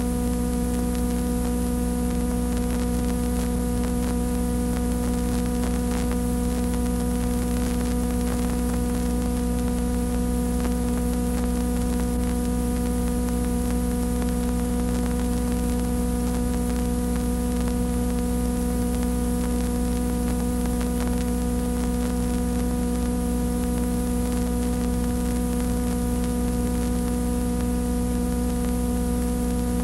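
Steady electrical mains hum with a buzz of overtones and an even hiss, unchanging throughout, with no other sound: the noise of the recording or transfer chain over otherwise silent footage.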